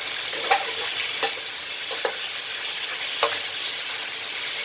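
Fish and seasonings sizzling in a hot frying pan, with a steady hiss and a spatula knocking against the pan four times as it is stirred.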